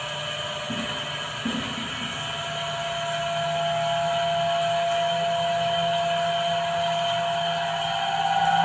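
Steady machine hum with several held tones from the equipment unloading a liquid-oxygen tanker. It grows a little louder about three seconds in, and near the end it swells again as the pitch edges up.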